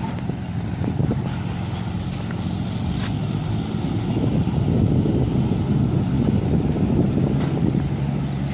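Diesel engine of a SANY SR280R rotary drilling rig running steadily with a low, even hum, with a few faint clicks over it.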